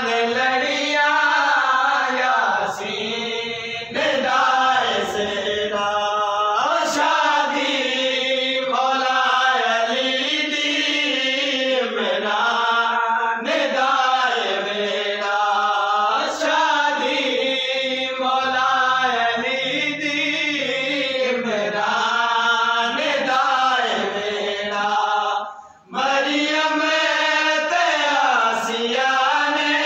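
Background vocal music: a chanting voice sings a slow, wavering melody throughout, with a short break about 26 seconds in.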